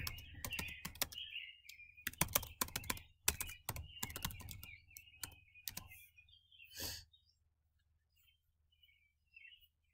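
Typing on a computer keyboard: a quick run of key clicks for about six seconds, one last heavier keystroke near seven seconds, then quiet.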